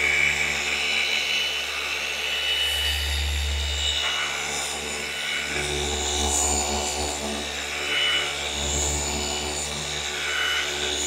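Flex FX3331 24V cordless gear-driven orbital polisher running steadily, its pad buffing polish on a car's painted hood. A steady low hum with a faint high whine above it.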